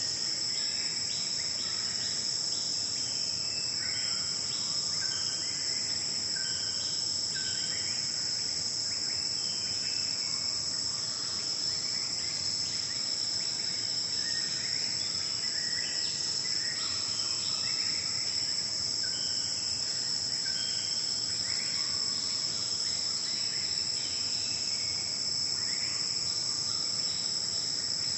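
Steady high-pitched chorus of forest insects, with many short bird calls and notes scattered through it.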